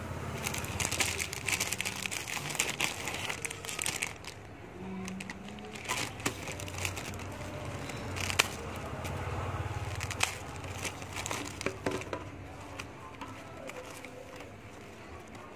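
Clear plastic food wrapper crinkling and rustling as it is handled, densely for the first few seconds, then in scattered sharp crackles and clicks.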